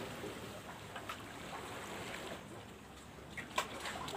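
Sea water lapping against a rocky shore. A few small clicks sound over it, with one sharper click a little over three seconds in.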